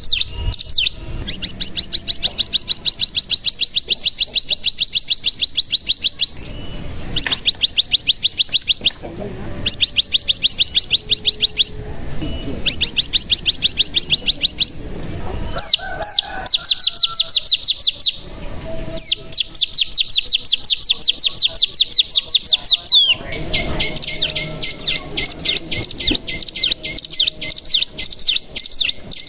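Ciblek gunung (mountain prinia) singing its 'ngebren' song: long, rapid, high-pitched trills that run for two to five seconds at a time, with short breaks and a few single chirps between them. From about three-quarters of the way through, a different, choppier run of notes takes over.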